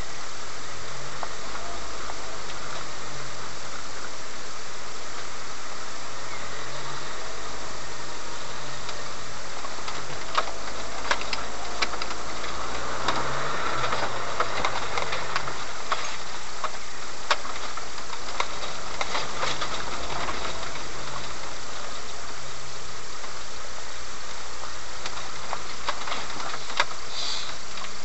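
A 4x4's engine running at low speed off-road, heard from inside the cab, its note shifting every few seconds as the throttle changes. In the middle, a run of sharp knocks and rattles as the vehicle jolts over rough ground, and a brief squeak near the end.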